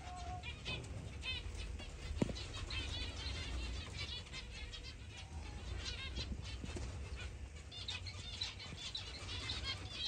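A flock of zebra finches calling: many short calls, one after another and overlapping, with a single sharp knock about two seconds in.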